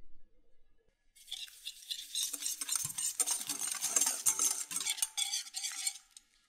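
A hand whisk stirring a runny egg mixture in a glass bowl: fast wet scraping with rapid clicks of the utensil against the glass, starting about a second in and stopping near the end.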